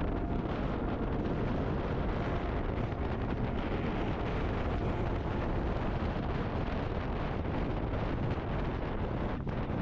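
Wind buffeting the microphone on a moving motorcycle, a steady rushing noise with the bike's running and road noise blended underneath.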